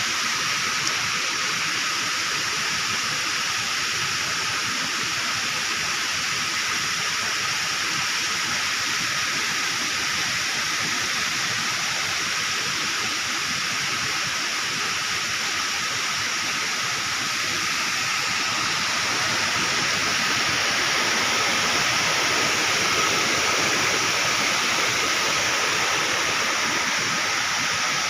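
Steady rush of flowing water at a dam, an even hiss that swells slightly in the second half.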